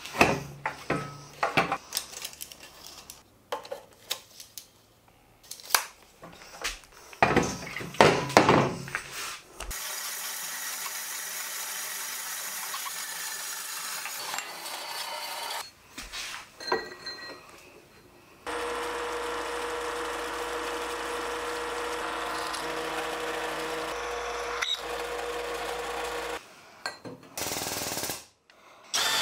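Metalworking sounds: a run of metal clanks and knocks, then a metal-cutting band saw running steadily through a steel flat bar for about six seconds. After a few more knocks, a drill press runs with a steady hum for about eight seconds.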